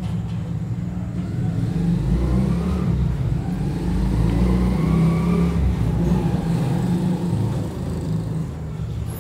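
A motor vehicle's engine running and revving, its pitch rising from about a second and a half in and falling away after about five seconds, over a steady low rumble.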